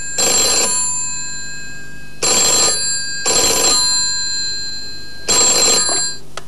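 Desk telephone ringing in short double rings, two rings close together and then a longer pause, four rings in all. The ringing stops near the end as the handset is lifted with a light click.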